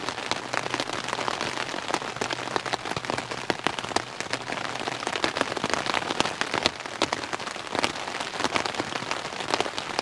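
Steady rain pattering on the MSR Elixir 1 tent's fly sheet, heard from inside the tent: a dense, even patter of individual drops.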